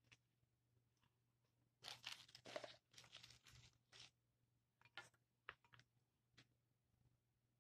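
Faint rustling and crunching of dried moss as gloved fingers push small eggs into it, in a few short scratchy bursts, followed by a handful of light clicks.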